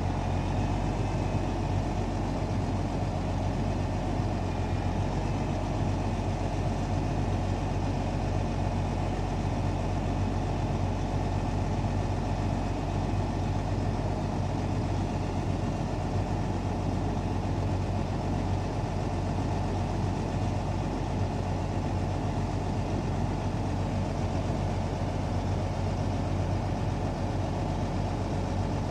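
Log truck's diesel engine running steadily, powering the hydraulic self-loader crane as it works the logs.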